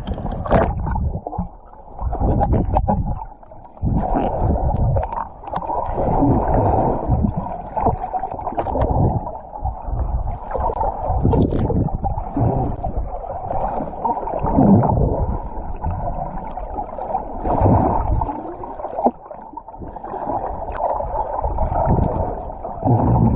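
Muffled sloshing and gurgling of sea water around the camera, with uneven low rumbling surges.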